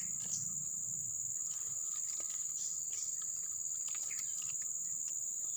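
Insects in swamp forest keeping up a steady, unbroken high-pitched buzzing drone, with a few faint ticks now and then.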